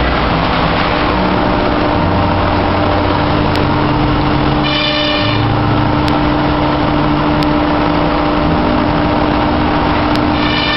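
Robot-mounted milling spindle cutting polystyrene foam with a small cutter: a loud, steady whirring over a constant hum, joined briefly by a high whine about five seconds in.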